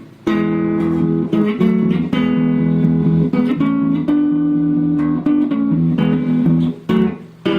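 Electric guitar, a cheap AliExpress copy of a Rickenbacker 325, strumming chords, with brief breaks just after the start and near the end.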